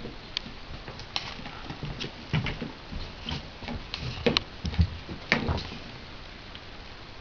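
A dog playing with a water bucket: irregular knocks and clatter of the bucket for about five seconds, loudest near the middle, then quieter.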